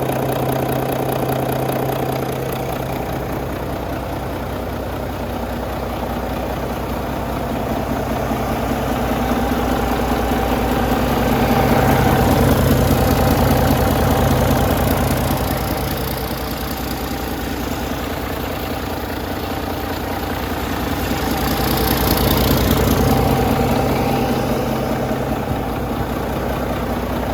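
2014 Volvo D13J 12.8-litre inline-six diesel truck engine running steadily at idle on a test run. Its pitch holds level while the loudness swells and eases twice, with a brief hiss added high up about 22 seconds in.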